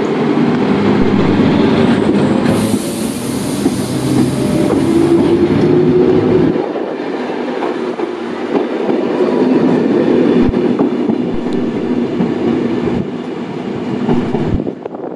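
CFL Series 2000 electric multiple unit running on the track with steady rail noise. A rising whine comes in a few seconds in, and the wheels click over rail joints later on.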